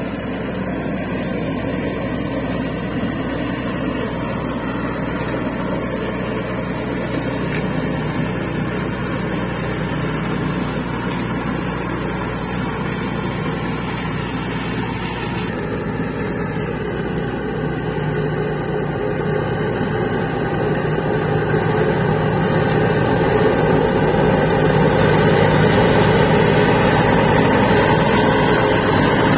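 Scag Turf Tiger zero-turn mower's Caterpillar diesel engine running steadily under load with the cutting deck engaged, mowing tall grass. It grows louder over the last third as the mower comes close.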